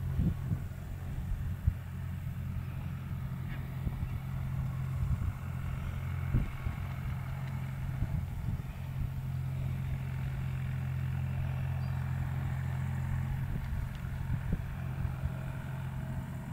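A steady low engine hum, like a vehicle idling, with low rumble underneath and a few soft thumps.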